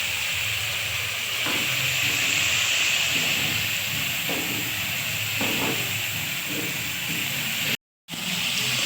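Mutton curry frying in a pot, a steady sizzling hiss that cuts out for a moment near the end.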